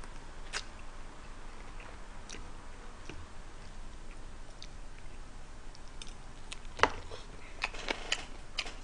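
A person chewing food, with scattered small clicks and a denser run of sharper clicks and knocks over the last few seconds, the loudest about seven seconds in.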